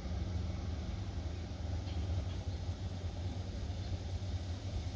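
An engine running steadily: a low, even hum with a faint tone above it that fades out about a second in.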